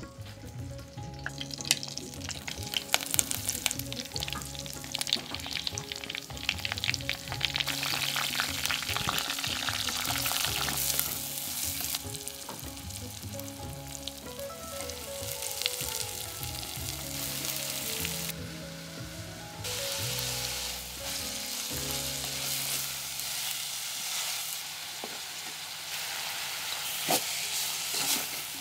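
Sliced onions, green chillies and then chopped winged beans sizzling in hot oil in a clay pot, with a spoon stirring them. Many sharp spattering crackles come in the first half, and the sizzle eases briefly a little past the middle.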